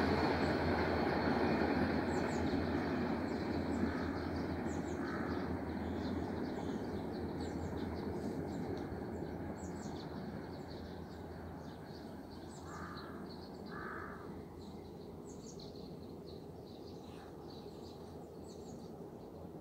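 A train's rumble fading steadily as it moves away along the line. A crow caws in two pairs, about four seconds in and again about thirteen seconds in, while small birds chirp.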